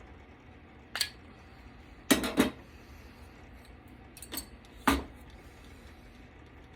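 Sharp clinks and clatters of hard metal and plastic parts being handled while a desktop computer's motherboard is taken apart. There is one clink about a second in, a quick cluster just after two seconds, and two more around four to five seconds.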